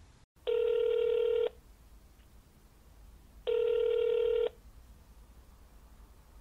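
Telephone ringback tone, the ringing a caller hears while the line rings unanswered: two steady one-second beeps about three seconds apart.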